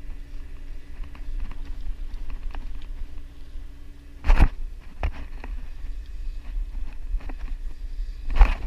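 Steady hum of a boat's engine over a low rumble, with two sharp knocks, one about four seconds in and one near the end, and light clicks between them.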